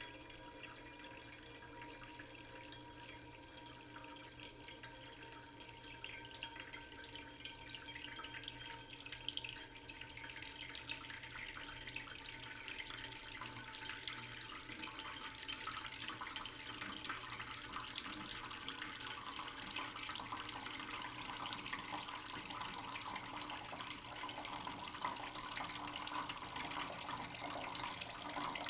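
Tap running slowly into a cooking pot in a sink, a thin stream splashing and trickling into the water in the pot. It grows gradually louder and brighter, and a faint ringing tone fades out about halfway through.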